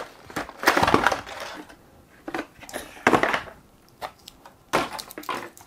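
Cardboard and plastic packaging of a gaming mouse being handled and opened: a few separate short rustling, scraping bursts with quieter gaps between them.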